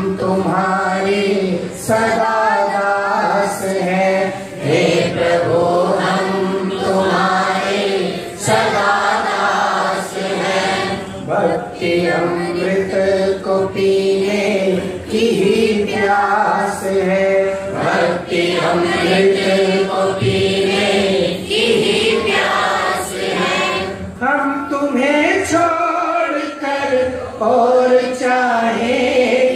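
Many voices chanting a devotional hymn together, with a man singing into a microphone leading. The phrases are sung at an even pace, with short breaths between lines.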